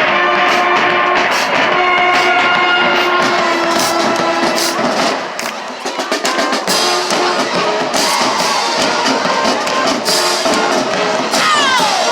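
Music with drums: held notes for the first five seconds, then a busy drum beat, with a sliding note falling just before the end.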